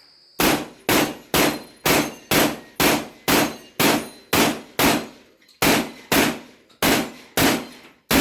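Shotgun fired in a rapid string of about fifteen shots, roughly two a second, with a slightly longer break a little past halfway, each shot leaving a short ring.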